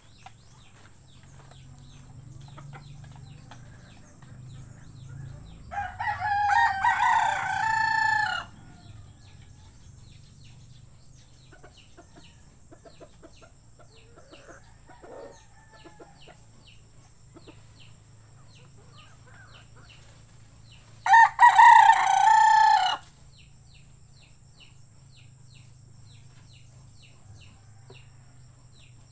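A rooster crowing twice, each crow about two seconds long, some fifteen seconds apart.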